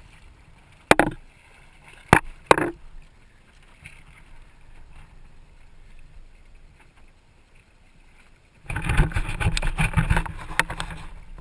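Three sharp splashes and knocks in the first few seconds as a hooked small shark thrashes at the surface and is lifted out on the line. Near the end, a loud stretch of rough knocking and rubbing noise lasting about two seconds.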